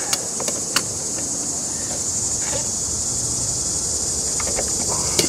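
Steady high chorus of insects, with a few small sharp clicks of a screwdriver working a metal hose clamp on the pool pump's hose fitting, once about a second in and again near the end.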